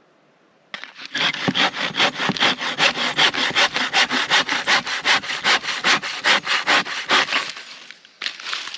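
Hand saw cutting wood in quick, even back-and-forth strokes, about four or five a second, starting about a second in and stopping shortly before the end.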